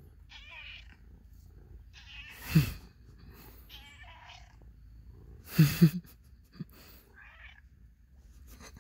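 Domestic cat meowing loudly: one call about two and a half seconds in and two more close together a little before six seconds.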